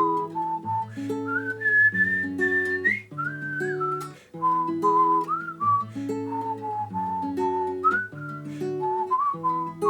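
A whistled melody with sliding notes over picked acoustic guitar, in an instrumental break between the sung lines of a song.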